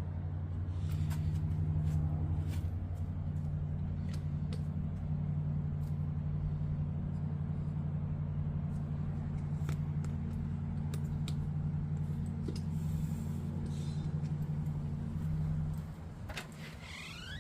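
An engine or motor running steadily with a low hum and a few light clicks over it; the hum dies away near the end.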